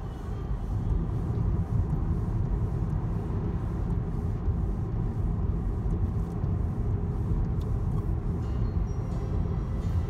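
Car driving along a road, a steady low rumble of engine and tyre noise with no sudden changes.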